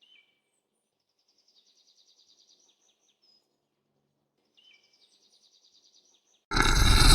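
Faint high bird chirps and trills over an otherwise very quiet background. Near the end a loud, harsh, noisy sound starts suddenly.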